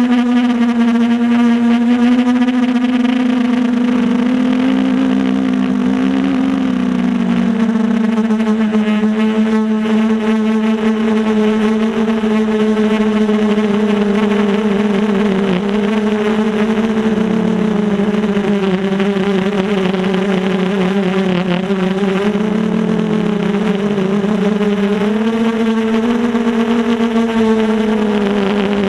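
Brushless motors and propellers of a 250-size FPV quadcopter whining, heard from the onboard camera, the pitch wavering and stepping up and down with the throttle.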